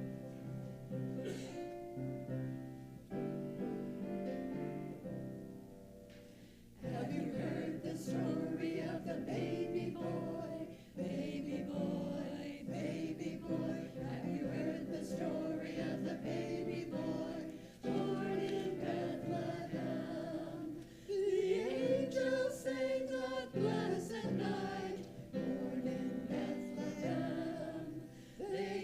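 Church music: a keyboard introduction of sustained chords, then a choir comes in singing with accompaniment about seven seconds in, in phrases with short breaths between them.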